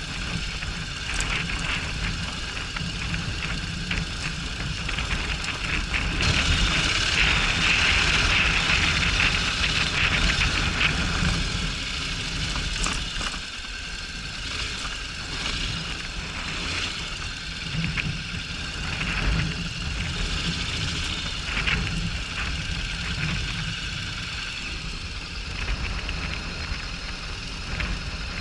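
Honda NC750X DCT motorcycle's parallel-twin engine running as the bike is ridden off road, under a steady hiss of wind and track noise with scattered clicks and rattles. The hiss grows louder for a few seconds about six seconds in.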